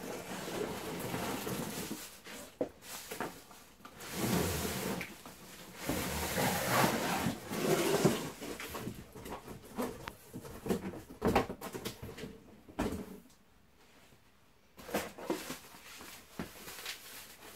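Cardboard box and polystyrene packing being handled while a vacuum cleaner is unpacked: irregular scraping, rustling and sliding with a few sharp knocks. Near the end, papers rustle.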